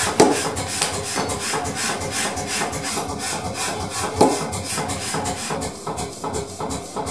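Hand file rasping quickly and evenly across a steel Japanese hammer head (genno), several strokes a second, with a sharper knock about a fifth of a second in and another about four seconds in.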